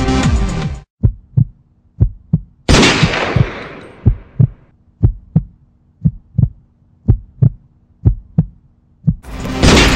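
The music cuts off and a slow heartbeat sound effect takes over: a double thump about once a second. One loud gunshot sound effect with a long fading tail comes about three seconds in, and the music comes back near the end.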